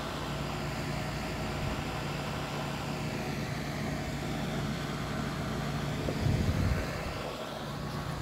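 Steady mechanical hum of rooftop HVAC equipment, holding a few steady tones, with a brief low rumble about six seconds in.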